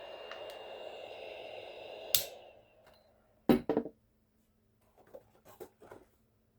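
Hot air gun's fan blowing steadily with a faint high whine, switched off with a click about two seconds in and spinning down within half a second. Then a quick cluster of loud knocks, and a few quieter knocks a couple of seconds later.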